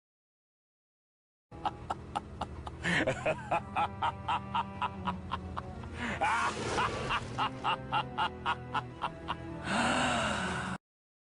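A short music clip with a steady beat of about three pulses a second. It starts after a second and a half of silence, and it ends in a brief burst of hiss that cuts off suddenly.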